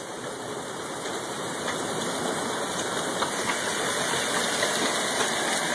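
Rain and hail coming down hard in a storm: a steady rushing hiss that builds slightly, with a few faint ticks.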